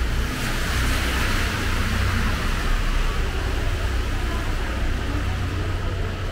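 A car passing on a rain-soaked road: tyre hiss swells over the first couple of seconds and then fades. A steady low rumble runs underneath.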